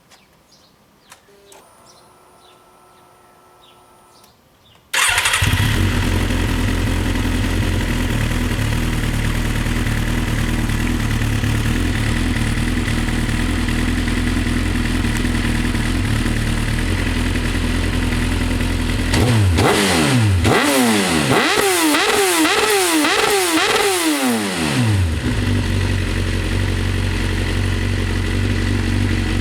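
Suzuki GSX-R1000 K9 inline-four with a Yoshimura R77 4-into-1 exhaust starting. A faint whine comes first, then the engine fires about five seconds in and settles into a loud, steady idle. Later it takes a run of about five quick throttle blips, each rising and falling in pitch, before dropping back to idle.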